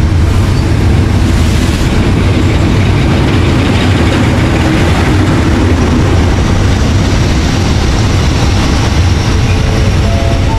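SRT GEK-class diesel locomotive No. 4040 running close past at the head of a passenger train, its engine giving a loud, steady low rumble, with the coaches rolling by behind it near the end.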